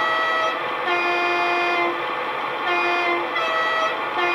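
Two-tone horn of a Class 41 Warship diesel-hydraulic locomotive, from a Loksound V5 DCC sound decoder played through a model locomotive's EM2 speaker. It is sounded as a series of blasts on a high and a low note, the longest about a second, over a steady background of engine sound.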